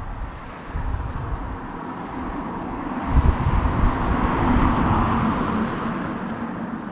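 A car driving past on the road, its tyre and engine noise swelling to a peak a little past halfway and then fading away. Gusts of wind rumble on the microphone.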